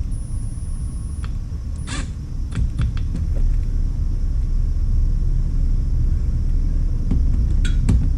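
A steady low rumble with a few light clicks and knocks, about two to three seconds in and again near the end, as a cordless drill/driver and a metal exhaust finisher are handled; the drill's motor is not running.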